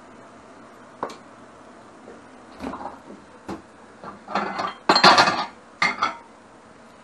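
Ceramic dishes clinking and knocking together as a plate is taken down from a stack of dishes. A series of short clatters, the loudest about five seconds in.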